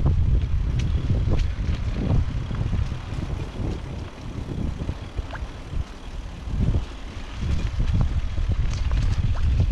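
Wind noise rumbling on the microphone of a camera riding on a bicycle, with scattered clicks and rattles as the bike rolls over a bumpy dirt track. The rumble eases for a few seconds in the middle, then picks up again.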